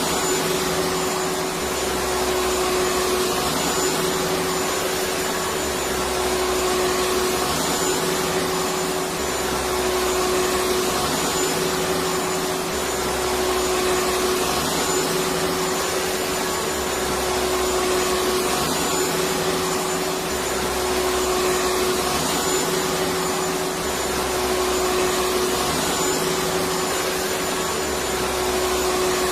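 Electric vacuum cleaner running continuously: a steady whooshing hiss with a constant motor hum. The level swells slightly every three to four seconds.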